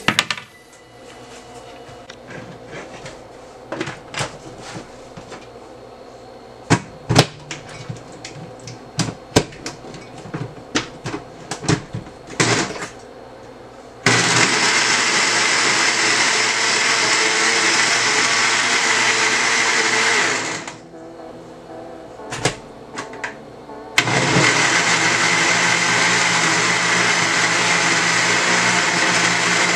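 Countertop blender running, liquidising longan pulp with water into juice: a first run of about six seconds starting about halfway through, a pause, then a second run. Before the first run, scattered clicks and knocks as the jar and bowl are handled.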